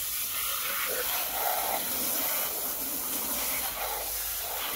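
Water jetting from a hose spray nozzle onto a muddy plastic toy excavator: a steady hiss of spray.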